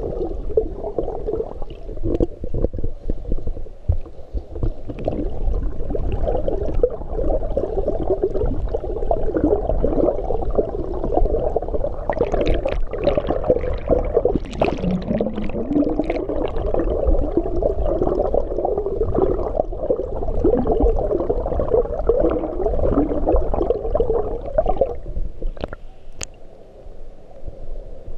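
Muffled underwater wash of a swimmer's strokes and kicks moving the water, heard through a submerged camera's microphone as a steady gurgling rush. It dips briefly near the end, with a single sharp click.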